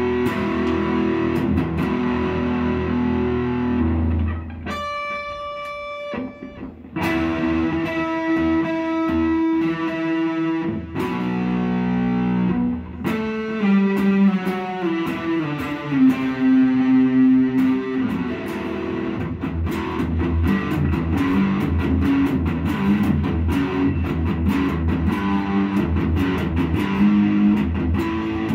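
A red SG-style electric guitar played through an amplifier, its sound being tried out now that work on it is finished. He picks single notes and chords, lets a held note ring out and fade about five seconds in, and plays a falling run of notes near the middle.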